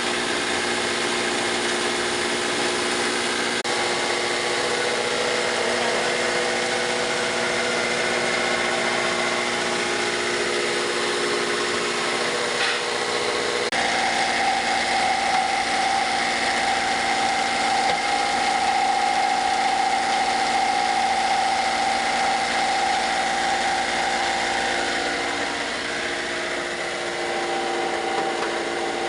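Wood chipper (wood shredder machine) running steadily with a mechanical drone; its tone changes about halfway through and shifts again a few seconds before the end.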